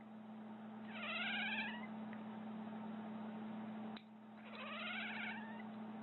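A cat meowing twice, each call a short warbly meow that rises in pitch, the second about three and a half seconds after the first, over a steady low hum.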